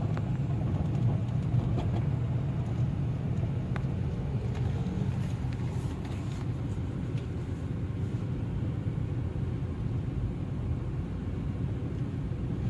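Hybrid car driving with its petrol engine running, a steady low rumble heard from inside the cabin. The engine is misfiring on cylinder 2, which the mechanic puts down to the coil, spark plug or injector.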